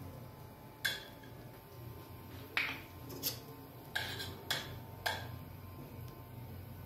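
Kitchenware clinking: a utensil knocking against a plate and pan about six times, each a sharp clink with a short ring, over a low steady hum.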